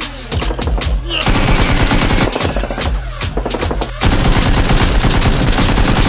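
Rapid automatic-gunfire sound effect dubbed over a toy foam blaster being fired. One burst starts about a second in, thins out briefly around three seconds, and a louder, unbroken burst follows from about four seconds.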